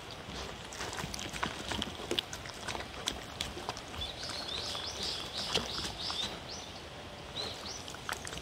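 Two dogs eating soft chopped vegetables, fruit and meat from a paper plate: a steady run of wet chewing, licking and smacking clicks. Around the middle a quick series of high chirps sounds in the background.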